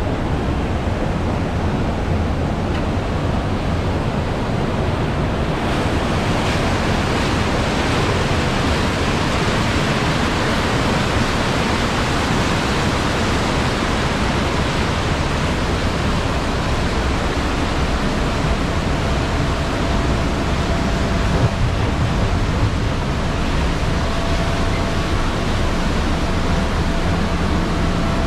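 Rushing, churning water of a river-rapids ride channel around a round raft boat, a steady hiss with wind rumble on the microphone. About six seconds in the water grows brighter and fuller.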